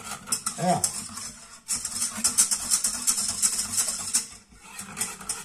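A utensil stirring a thickening milk custard in a saucepan, scraping repeatedly round the bottom of the pan, with a brief vocal sound about a second in.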